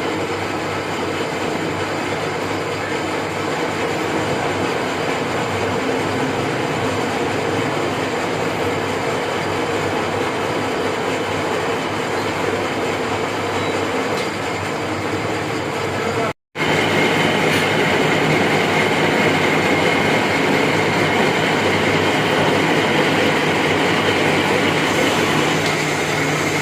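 Metal lathe running steadily while cutting an 8-threads-per-inch thread on a one-inch bolt, with the change gears engaged. The noise stops for a moment about two-thirds of the way through, then resumes with a steady higher tone added.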